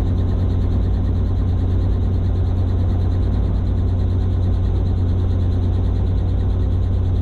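Robinson R44 helicopter running steadily: a constant low engine and rotor drone that does not change.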